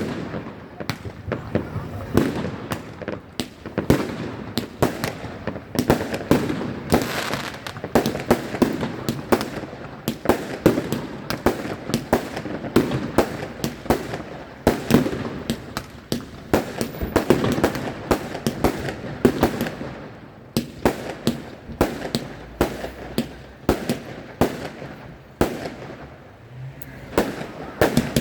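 Fireworks going off in quick succession: a dense stream of sharp bangs and crackles, with brief lulls about twenty seconds in and again near the end.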